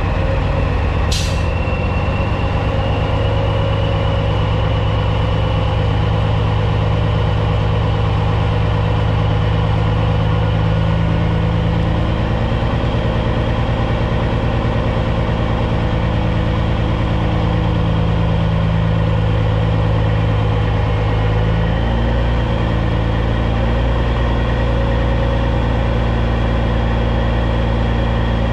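Caterpillar C15 diesel of a Peterbilt 379 semi running steadily at low engine speed, its note shifting slightly about two thirds of the way through. There is one brief sharp high noise about a second in.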